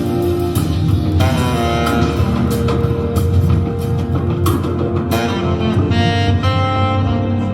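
Instrumental music with plucked guitar over a steady bass line and occasional sharp percussive hits, played back over hi-fi loudspeakers in a show demo room and picked up by a small camera mic.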